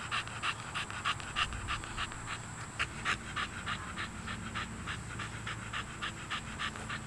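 American Bully puppy panting in quick, even breaths.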